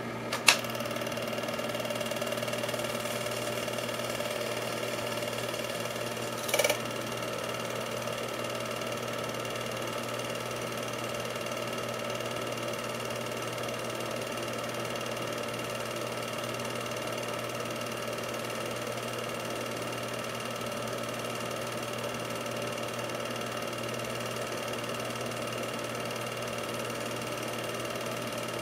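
8mm film projector running, a steady mechanical whir from its motor and film transport. A sharp click comes about half a second in and a brief louder noise at about six and a half seconds.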